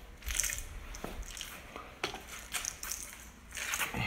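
Footsteps on a concrete floor: a handful of irregular scuffing steps.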